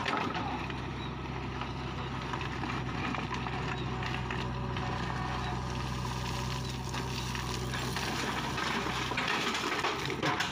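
JCB backhoe loader's diesel engine running steadily as its rear bucket digs into a pile of soil and stones. The steady hum fades about nine seconds in, leaving a rougher, noisier sound near the end.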